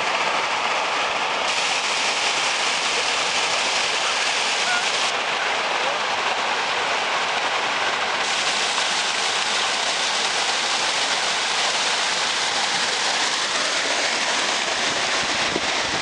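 River white water cascading over sandstone ledges at the head of a waterfall: a steady, loud rush of water.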